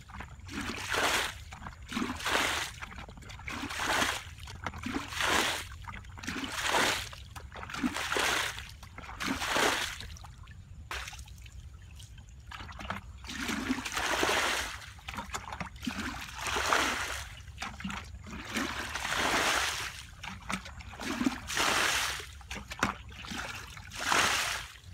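Water splashing over and over in a regular rhythm, about one splash every second and a half, with a pause of a few seconds near the middle and longer, drawn-out splashes after it, over a steady low rumble.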